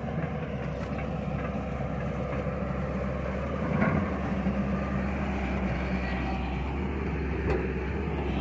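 Excavator engine running steadily, with a short knock or clank about four seconds in and another near the end.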